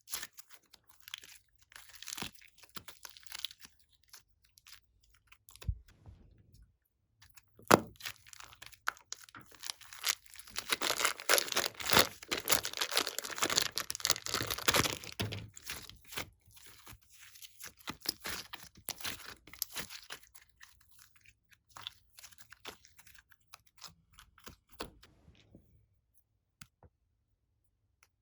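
Slime being squeezed, stretched and pressed by hand, giving irregular sticky crackles, pops and crunching clicks. The clicks come thickest and loudest about halfway through, then thin out and stop near the end.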